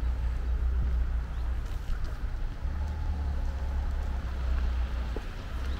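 Wind buffeting the camera's microphone, a steady low rumble.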